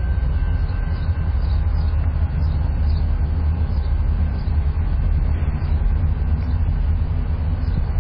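Canadian Pacific EMD SD40-2 diesel locomotive working as it moves a rail work train slowly through the yard, a steady low rumble.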